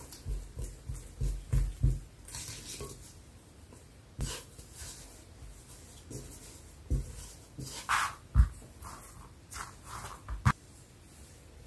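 Soft, sticky bread dough being worked: a silicone spatula pushes it around a glass bowl in a quick series of low thumps, then hands knead and press it, with sticky squelching and a few single thuds.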